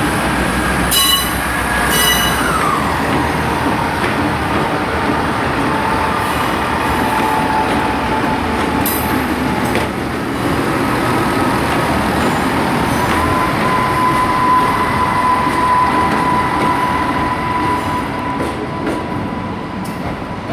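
Three coupled Class 158 diesel multiple units pulling out and passing at low speed: steady diesel engine and rail noise throughout, fading a little near the end. Sharp high wheel squeals and clicks come about one, two and nine seconds in, and a high whine drops in pitch around two and a half seconds in, with a steady high tone from about thirteen seconds on.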